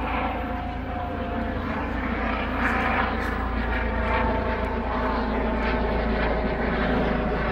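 Yellow MMT trauma helicopter in flight, its turbine and rotor noise steady and growing slightly louder.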